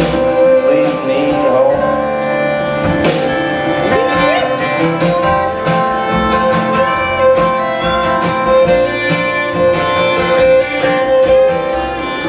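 A folk band playing live in an instrumental passage: fiddle, acoustic guitar, upright bass and electric guitar, with long held notes over plucked strumming.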